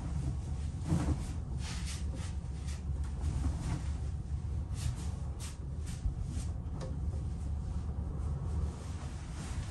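Steady low rumble of a large car ferry's engines heard on board, with scattered light clicks and knocks of things being handled.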